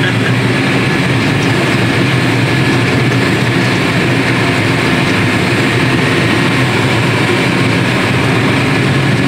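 Tractor engine running at steady revs, heard from inside the cab while driving with a loaded trailer behind: a constant low drone with an even hiss over it.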